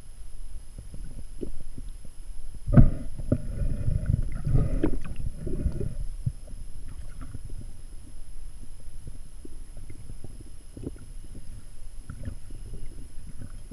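Low underwater rumble of water moving over a camera housing. About three seconds in there is a sharp knock, followed by a few seconds of louder rumbling and clatter.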